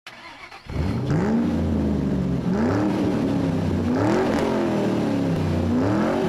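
An engine revving up and easing back down several times in a row, starting about three-quarters of a second in.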